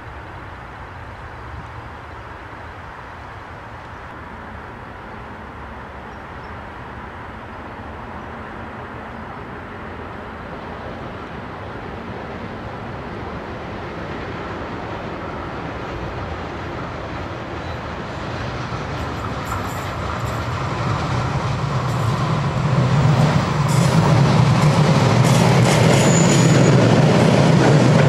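A Fertagus 3500-series double-deck electric multiple unit (Siemens-CAF) approaching and passing close by, its running noise growing steadily louder. Sharp clicks come in as it draws near, with a brief high wheel squeal near the end.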